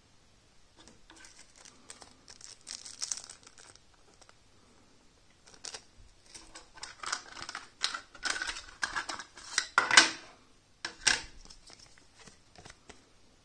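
Crinkling and rustling of a small plastic packaging bag and paper inserts being handled, in two spells of bursts with a pause between, the loudest crackle about ten seconds in.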